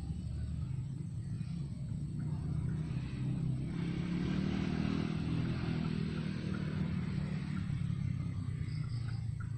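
A motor engine running with a steady low rumble, growing louder about three and a half seconds in and easing off again near the end, as it passes by.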